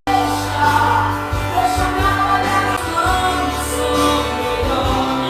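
Background music with a woman singing over a steady bass line, in the style of a gospel hymn.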